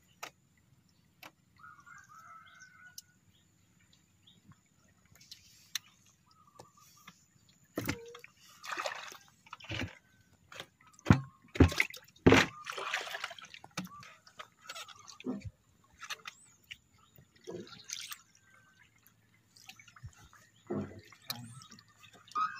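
Water splashing and dripping, with scattered knocks and rustles, as a net and freshly caught fish are handled over a wooden boat deck; the loudest splashes come about halfway through.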